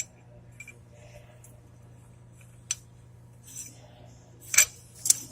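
A few sharp metallic clinks and taps of steel hub parts being handled, the loudest about four and a half seconds in.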